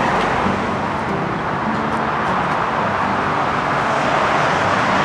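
Steady, continuous noise of heavy highway traffic from the nearby I-95/128 interstate, with faint engine hum mixed in.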